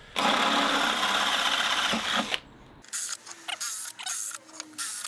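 Cordless drill boring through the steel grate to widen a hole, running steadily for about two seconds and then stopping, followed by a run of short clicks and knocks.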